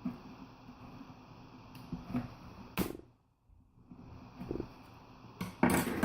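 Handling noise as a laptop's metal screen hinge and display are worked into place: scattered light knocks and sharp clicks, one about halfway through and the loudest cluster near the end.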